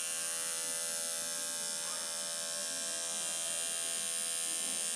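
A circulator pump running, its motor giving off a steady buzz with a high whine above it.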